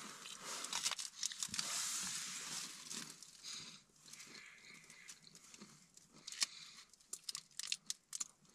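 A thin plastic bag rustling and crinkling for the first few seconds, then softer, scattered crunches and clicks of food being chewed close to the microphone.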